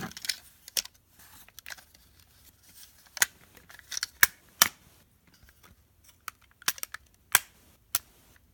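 Plastic parts of a Transformers action figure clicking and snapping as hinged panels are rotated and tabbed into place by hand. A dozen or so sharp clicks come at irregular intervals, a few of them close together.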